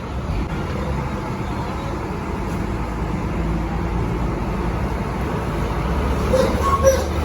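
Bus engine running with road and traffic noise, a steady low rumble; a couple of brief short tones sound near the end.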